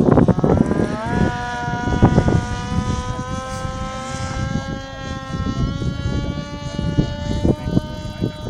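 RC model airplane's motor whining as it flies past, its pitch climbing steeply about a second in and then holding nearly steady. Wind buffets the microphone throughout, in loud gusts at the start.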